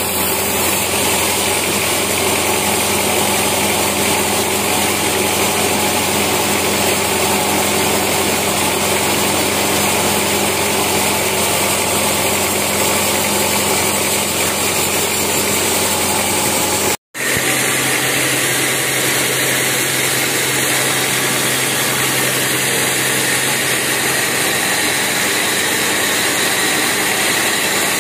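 Band sawmill running, a loud steady machine drone of motor and saw blade. It cuts out for an instant about seventeen seconds in, then carries on with a steady low hum added.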